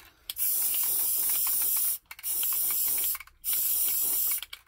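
Aerosol can of Krylon Fusion white matte paint and primer spraying in three hissing bursts, the first and longest lasting about a second and a half.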